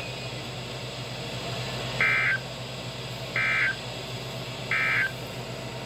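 NOAA Weather Radio's SAME end-of-message data bursts: three short, buzzy two-tone warbles, each about a third of a second long and about a second and a half apart, which mark the end of the warning broadcast. A steady low hum runs underneath.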